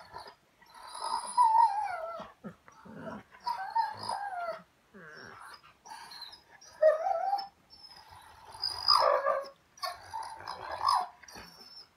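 German shorthaired pointer 'talking': a string of drawn-out vocal calls, each sliding up and down in pitch, about half a dozen with short pauses between.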